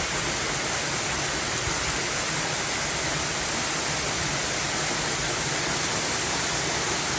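Steady rushing of water falling at a small waterfall, an even, unbroken hiss.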